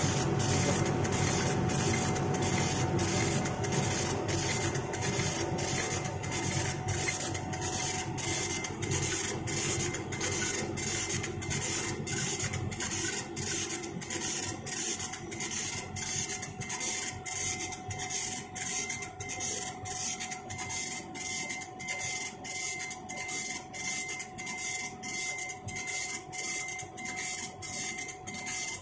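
CNC machine running, a steady hiss and whine pulsing evenly about one and a half times a second, with a heavier low rumble that fades over the first ten seconds or so.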